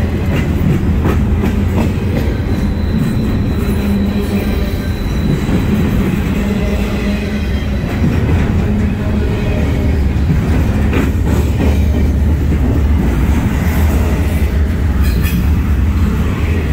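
Double-stack intermodal freight train's well cars rolling past close by: a steady, loud rumble of steel wheels on rail, with occasional sharp clacks over the rail joints.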